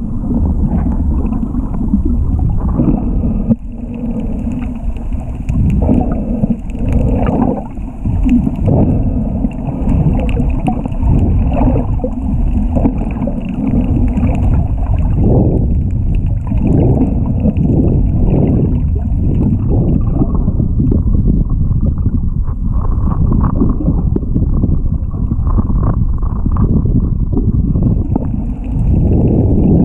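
Muffled underwater rumble with irregular bubbling and gurgling.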